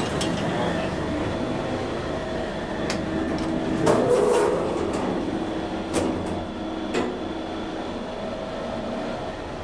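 Thyssen inclined elevator cab travelling along its sloping track: a steady rail-like running rumble with a faint hum, and sharp clicks and knocks about 3, 4, 6 and 7 seconds in, the one near 4 seconds the loudest.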